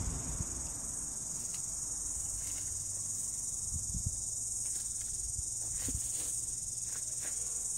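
Steady high-pitched insect chorus that runs on without a break, with a few faint taps in the foreground.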